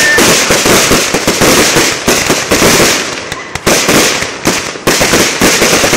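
An aerial fireworks display bursting close overhead: a loud, dense barrage of rapid cracks and pops, easing briefly about three seconds in before picking up again.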